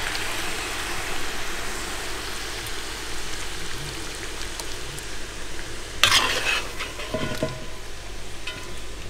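Lamb and liver kuyrdak sizzling steadily in the hot kazan as it is scooped out with a metal slotted skimmer. About six seconds in, the skimmer scrapes loudly against the pot, with a brief metallic ring after it.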